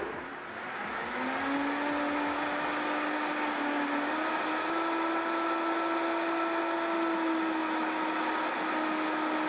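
High-speed countertop blender motor spinning up and then running steadily under load, blending a thick batter as the tamper pushes it down. Its pitch steps slightly higher about four seconds in.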